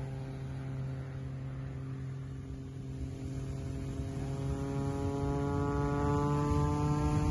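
Aerobatic airplane's engine droning overhead, a steady hum that grows louder with its pitch rising slowly over the second half.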